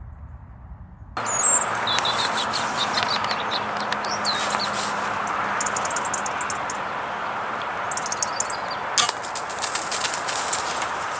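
A low rumble gives way, about a second in, to a steady outdoor hiss with small birds chirping in short high notes. Rapid faint crackles join about nine seconds in.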